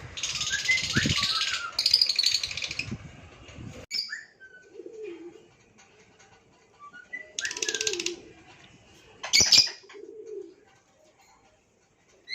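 Lovebirds calling: harsh, buzzy screeches in three bursts, the first two back to back near the start and a shorter one past the middle, with short high chirps and a few low cooing calls between them. A sharp, loud crack comes about nine and a half seconds in.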